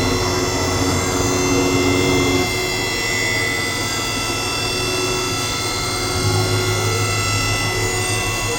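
CNC milling machine running: a steady machine whine with several high tones held throughout. Its lower hum changes pitch and strength about two and a half seconds in and again about six seconds in.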